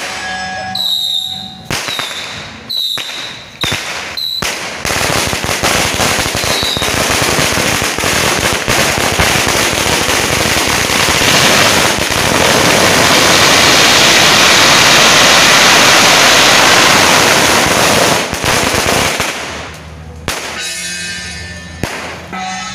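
A long string of firecrackers going off. A few scattered pops open it, then from about five seconds in it becomes a dense, rapid crackle of bangs, loudest in the middle, which dies away about twenty seconds in.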